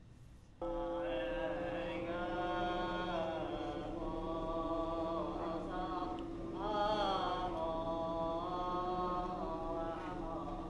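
Buddhist chanting over a steady, sustained drone. It starts about half a second in and carries on with slow, gliding melodic phrases.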